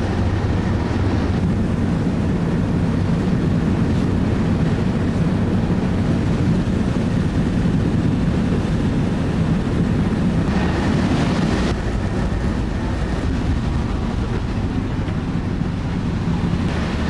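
Steady low engine rumble mixed with wind noise on the microphone, with a brief rise in hiss about ten and a half seconds in.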